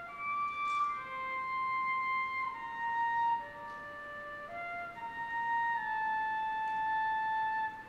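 High school concert band playing a slow melody of long held notes that move step by step.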